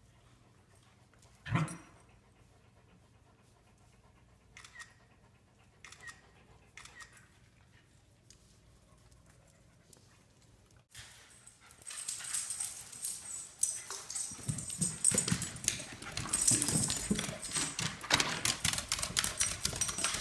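Dog claws clicking and paws thumping fast on hardwood stairs: a corgi scrambling up a wooden staircase. This dense clatter starts about eleven seconds in and is the loudest sound. Before it the dogs are mostly quiet on the floor, apart from one short sharp dog noise about a second and a half in.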